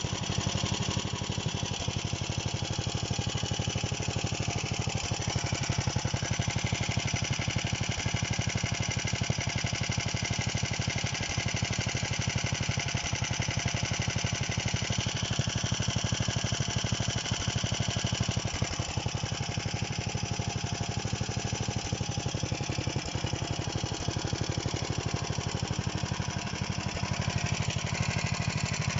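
Freshly overhauled DM-1 small diesel engine running steadily at an even idle, with a rapid, regular firing pulse.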